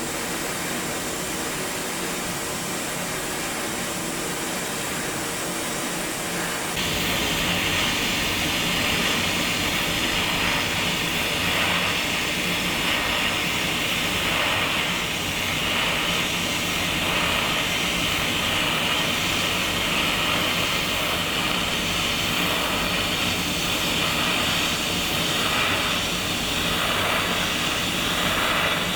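A steady machine hum, then about seven seconds in the TIG welding arc on stainless steel takes over: a steady DC arc hiss at about 160 amps, without pulse. It carries a faint regular pulsing about once a second as the torch is weaved and the filler wire is fed.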